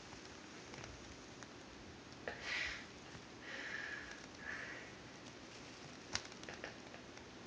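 Miniature pinscher sniffing at a mirror, its nose against the glass: three short sniffs a couple of seconds in, then a single sharp tick a little later.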